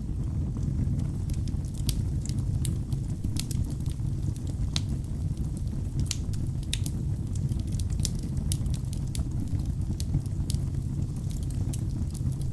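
Logs burning in a fireplace: a steady low rumble of flames with frequent, irregular sharp crackles and pops.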